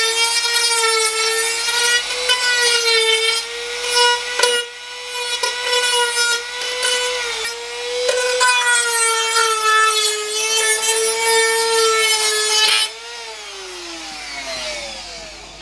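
Dremel rotary tool running at high speed with a steady whine while grinding burrs off the edge of a freshly hole-sawn hole in the vehicle's sheet-metal inner guard. Its pitch dips briefly a couple of times under load. Near the end it is switched off and winds down with a falling whine.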